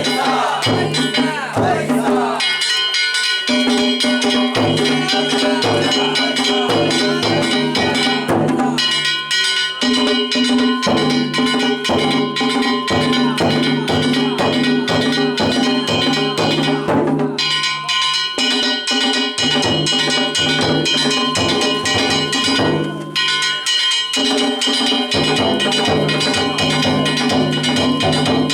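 Danjiri festival music: taiko drums beating a fast, steady rhythm with metal kane gongs struck in time and ringing over them. The drums break off briefly a few times between phrases.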